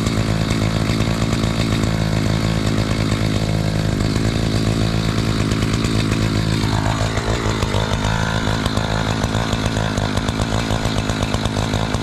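Chainsaw with a 20-inch bar running at high throttle while cutting into a large log round. About seven seconds in, a tone in the sound slides sharply down in pitch.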